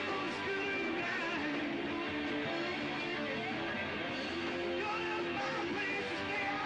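Rock band playing an instrumental passage, with electric guitar to the fore.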